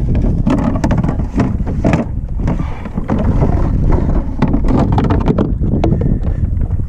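Strong wind buffeting the microphone, with choppy water splashing and slapping against a plastic kayak hull.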